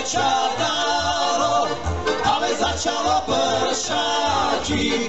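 Slovak folk band playing live: a clarinet melody over cimbalom and double bass, with the bass plucking a steady beat of about two notes a second.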